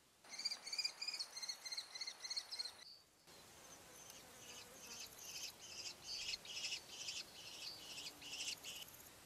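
Common kestrels calling: a rapid series of shrill, piercing calls about four a second, then after a brief break a longer run of harsher, scratchier repeated calls.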